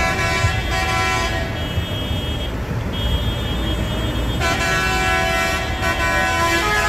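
Tractor horns sounding in long, held blasts, several pitches together, over the low rumble of tractor diesel engines; the horns get louder about four and a half seconds in.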